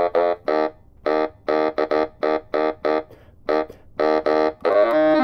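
Yamaha YDS-150 digital saxophone playing a quick line of short, separately tongued notes, about a dozen in a row with short gaps between them. Near the end a longer note slides in pitch.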